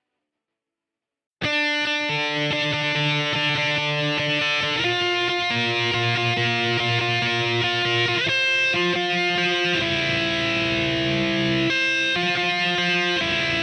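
Silence for about a second and a half, then a song's intro starts: guitar chords ringing out, changing every couple of seconds.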